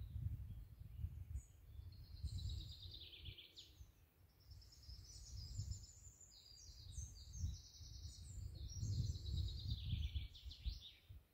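A songbird singing several runs of quick, high trilled notes, from about a second and a half in to near the end, over a low gusty rumble.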